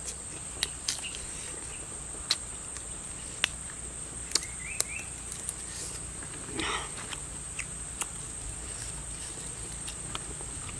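Insects droning steadily at a high pitch, with sharp clicks and smacks from a man eating grilled frog by hand scattered throughout. A few faint bird chirps come about halfway through.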